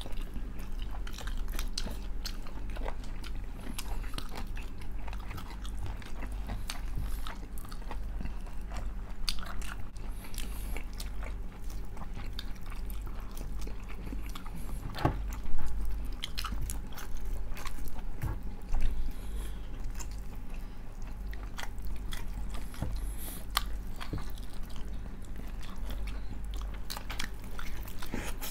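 Close-miked mukbang eating of pork knuckle: steady chewing and biting with occasional crunches and many sharp little clicks, over a steady low hum.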